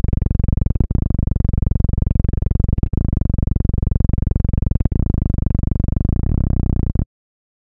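Heavy bass music played loud through large car-audio subwoofers (18-inch Soundstream XXX woofers with PSI recones), with a short dropout about every two seconds. It cuts off suddenly about seven seconds in.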